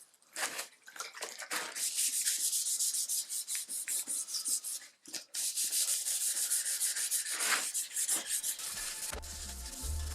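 Abrasive sanding: quick back-and-forth strokes of abrasive against a workpiece, in two runs of a few seconds with a short break between. Music comes in near the end.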